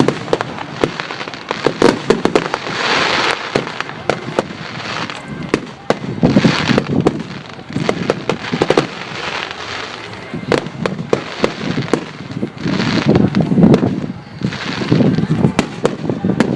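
Fireworks display: a steady string of sharp bangs and pops, with several bursts of crackling about a second long.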